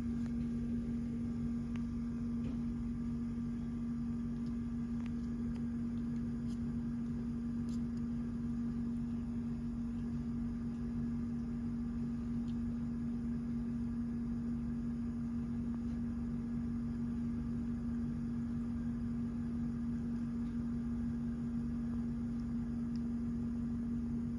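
Steady low electrical hum, like a running household appliance, holding one even pitch, with a few faint ticks over it.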